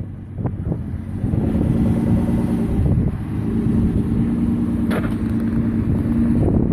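Suzuki Samurai's swapped-in 2.0-litre V6 running at high, steady revs under load as the lifted 4x4 climbs a rutted dirt bank, easing off briefly about three seconds in. A single sharp knock about five seconds in.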